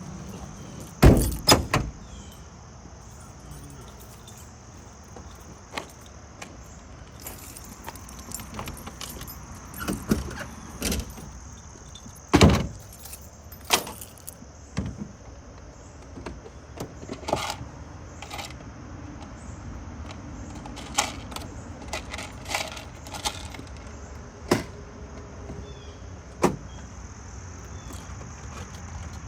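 Scattered sharp clicks and knocks of handling, the loudest a cluster about a second in and another about twelve seconds in, over a steady high-pitched hiss.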